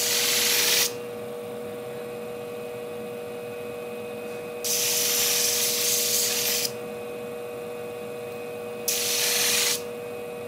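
Steel shear tip ground against the spinning disc of a Scimech Flathone sharpening machine in three short passes, over the steady hum of the machine's motor. The tip is being shortened and rounded off so that the blade tips meet.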